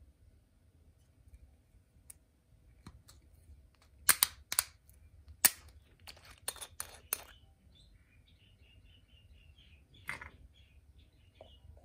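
A quick series of sharp clicks, about eight over three seconds starting about four seconds in, and another click near the end. Faint, quick bird chirping runs under them in the second half.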